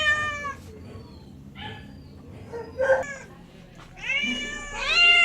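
Domestic cats meowing: a call fading out right at the start, a short faint meow around the middle, and a long drawn-out meow starting near the end.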